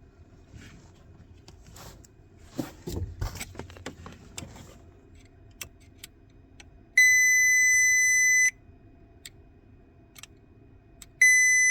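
Small clicks and rattles of a replacement fuse being fitted into the van's fuse panel, then a loud, steady electronic beep held for about a second and a half. A second identical beep starts near the end.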